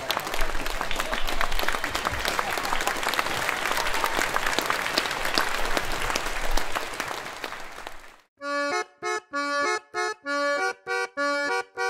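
An audience applauding in a large crowd, fading out about eight seconds in. It is followed by a short outro tune of detached, evenly spaced notes.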